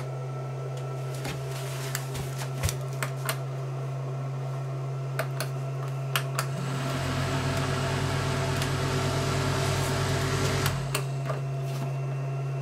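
Cooling fan inside a solar power box humming steadily, spinning up to a louder whir for about four seconds past the middle, then dropping back to the steady hum. A few light clicks from handling.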